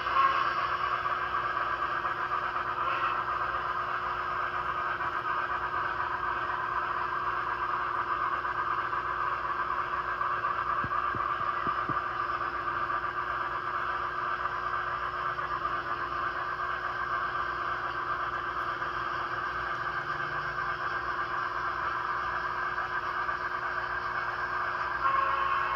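N-scale model train running around the track with a steady whir, growing a little louder near the end as the locomotive comes around the curve toward the microphone.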